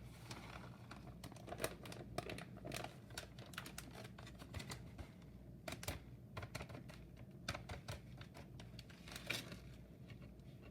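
Light, irregular clicks and rustles of hands spreading shredded cheese over a tortilla on a plate, with a few sharper ticks.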